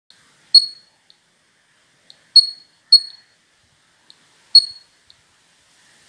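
Piezo buzzer giving short, sharp high-pitched beeps, four loud ones at uneven intervals, each ringing out briefly, with fainter ticks about once a second between them.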